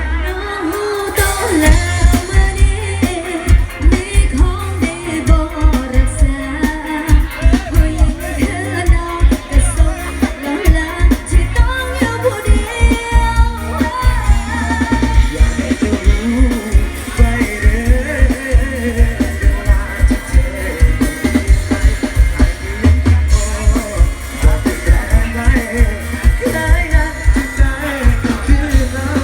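Thai pop song with a singer over a heavy, evenly pulsing bass and drum beat, played loud through a sound system.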